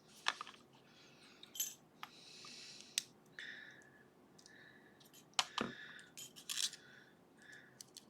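Small sharp metal clicks and short scrapes as a thin shim is worked into a Ruko lock around its brass-sleeved plug, catching on the sleeve. The clicks come irregularly, about half a dozen, the loudest about five and a half seconds in.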